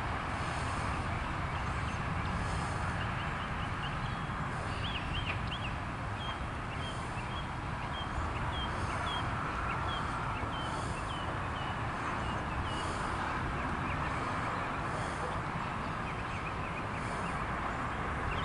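Loaded coal train's hopper cars rolling away over the rails: a steady rumble of steel wheels on track. A run of short high chirps repeats about twice a second through the middle.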